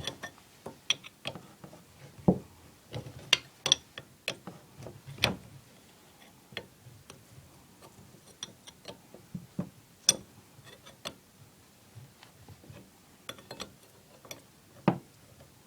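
Irregular sharp clicks and knocks of hand tools working on pipe fittings, a few louder knocks among many lighter ticks.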